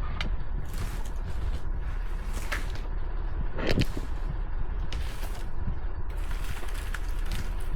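Off-road vehicle crawling along a rough dirt trail: a steady low rumble with scattered creaks and knocks from the body and suspension, the loudest about four seconds in.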